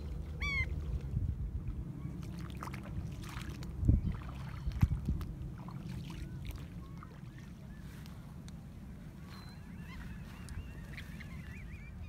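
Wind rumbling on the microphone, with scattered calls of coastal birds above it: a single clear call about half a second in, short chirps, and a chattering run of calls near the end. Two heavy thumps about four and five seconds in are the loudest sounds.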